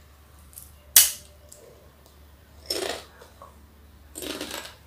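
A sharp, loud crunch as teeth snap through a crisp Jolo chip about a second in, followed by two short breathy sounds.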